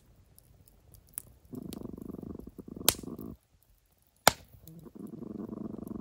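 Dog growling low in two long rumbles of about two seconds each, a warning growl at something it has noticed in the dark. A few sharp clicks come between them, the loudest just before the second growl.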